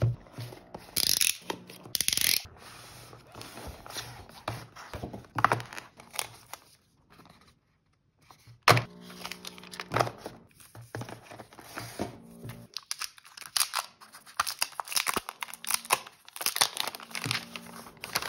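Cardboard smartphone box for a Samsung Galaxy A04 being handled and unboxed: scrapes, rustling and tearing of paper and plastic wrap, with small knocks as the lid slides off and the phone is lifted out. A brief pause about seven seconds in.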